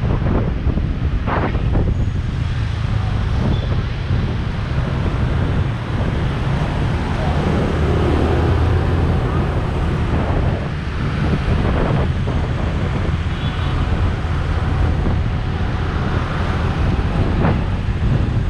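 Wind buffeting the microphone of a camera riding on a moving motor scooter, over a steady low rumble of the scooter and the traffic around it.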